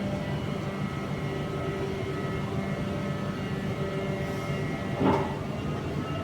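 Heavy machinery engine running steadily, with a short sharp noise about five seconds in.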